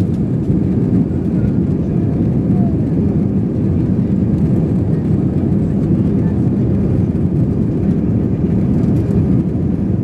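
Cabin noise of an Airbus A320 on its takeoff roll: the steady, loud rumble of the jet engines at takeoff power and the runway under the wheels, deep and even throughout.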